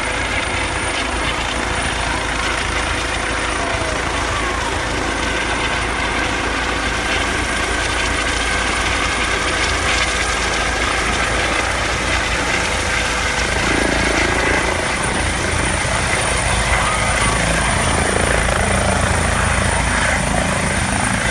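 Helicopter coming in to land close by: steady rotor and turbine noise with a faint high whine, getting a little louder in the second half.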